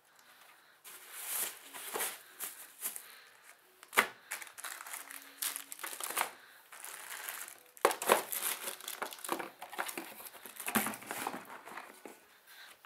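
Plastic packaging wrap and bags crinkling and rustling as a satellite receiver and its bagged remote are packed into their cardboard box, with a sharp knock about four seconds in and cardboard handling as the box is closed.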